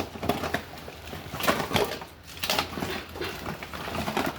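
Scattered knocks and rustles of items being handled and rummaged through in a backpack.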